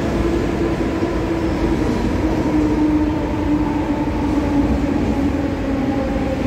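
Mumbai local electric multiple unit (EMU) train running slowly along a platform, a steady rumble under a whine that slides slowly down in pitch as the train slows.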